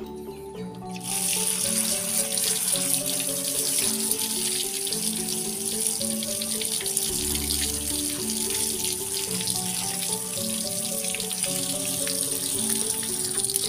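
Tap water pouring through a plastic basket of leafy greens and splashing onto concrete as hands rinse the leaves. It starts about a second in, over background music.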